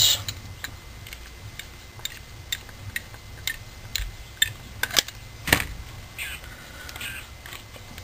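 Irregular small metal clicks and taps of a screwdriver working at a Kohler engine's carburetor body, and of the carburetor being handled, with a few sharper knocks about five seconds in.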